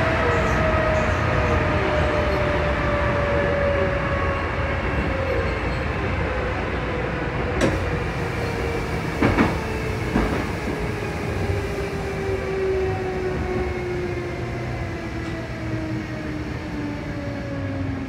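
Sanyo Electric Railway train running and slowing, the whine of its traction motors falling steadily in pitch as it brakes for a station. A few sharp knocks from the wheels on the track come about halfway through.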